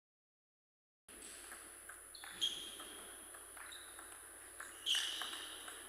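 Table tennis ball clicking off the paddles and bouncing on the table, a string of sharp light knocks, some with a short ringing ping, over a faint steady hall hum. The sound starts about a second in.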